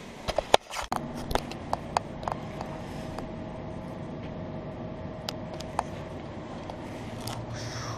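Steady machinery hum with a faint held whine, like a building's ventilation. A cluster of loud knocks and clicks comes in the first second, then scattered single clicks, one of them an elevator call button being pressed about five seconds in.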